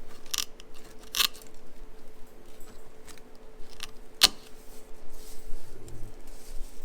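A few scattered clinks and scrapes of small hard objects being handled, with one sharp click about four seconds in, over a faint steady hum.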